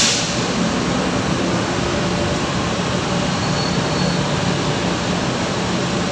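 Steady noise of heavy road traffic, buses and cars, with an LRT Line 1 light rail train approaching along the elevated track. A short hiss comes right at the start.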